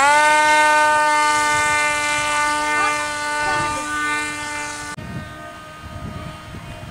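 RC model plane's motor and propeller whining at steady high throttle, the pitch sweeping up sharply at the start as it throttles up. About five seconds in the sound drops suddenly and carries on quieter at the same pitch, with gusts of wind rumbling on the microphone.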